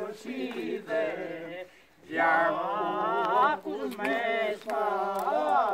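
A small group of voices singing a Greek folk dance song unaccompanied, in long held, wavering phrases with a short break about two seconds in.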